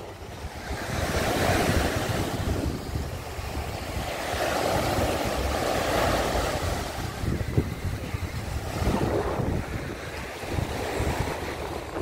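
Small sea waves breaking and washing up a sandy beach, swelling and fading in surges a few seconds apart. Wind buffets the microphone underneath.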